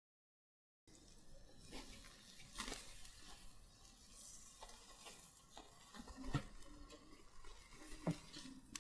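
Chicken sizzling faintly on a charcoal grill, starting after about a second of silence, with scattered light clicks and knocks.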